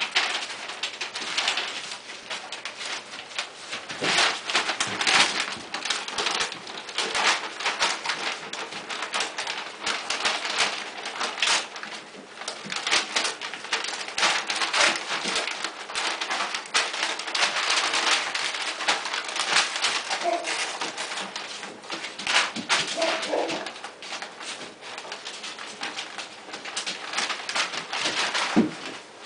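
Brown kraft paper crinkling and rustling irregularly as 8-week-old mastiff puppies play on it and tug at it, with a few soft puppy vocalizations about two-thirds of the way through.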